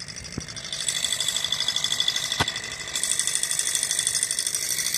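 Alpha-type hot-air Stirling engine model running, its pistons and flywheel making a fast, even mechanical clatter. It grows louder about a second in and again near three seconds, with one sharp knock in between.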